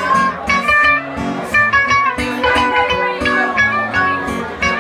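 Live string band playing an instrumental passage: upright double bass, guitar and a smaller plucked string instrument with drums, quick picked notes over a pulsing bass line.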